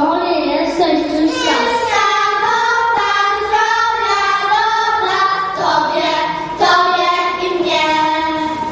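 A small group of young children singing a song together in held, sung phrases.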